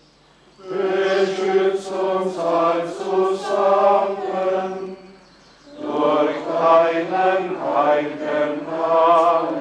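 A large crowd of pilgrims chanting a prayer together in unison. It comes in two long phrases with a short break about halfway through.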